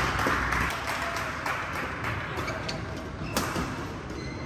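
Badminton hall ambience with a low murmur, fading after the first second, and a few faint taps. About three and a half seconds in comes one sharp crack of a racket striking the shuttlecock, the serve that starts a rally.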